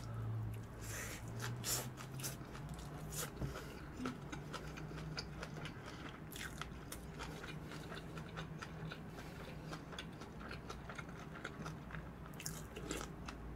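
Close-miked chewing of crunchy food, flying-fish-roe vegetable bibimbap, made up of many small crisp crunches and mouth clicks.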